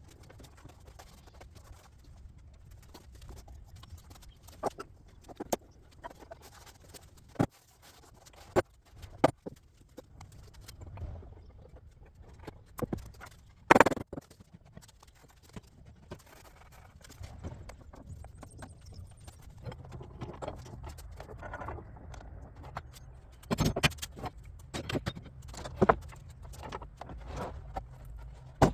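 Irregular knocks and clunks of wood being handled in a workshop, with a low steady hum underneath. The loudest knock comes about halfway through, and a quick run of knocks follows later.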